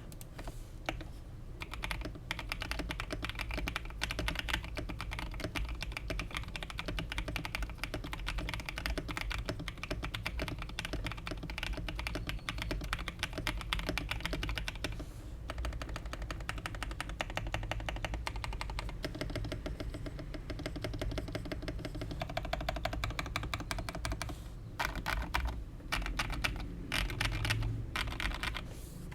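Fast typing on a custom KBD67 Lite mechanical keyboard with Harimau x Kiwi tactile switches on an FR4 plate and thick PBT keycaps, which give it a deeper sound. The keystrokes run quickly, pause briefly about halfway, and near the end come as slower, separate presses.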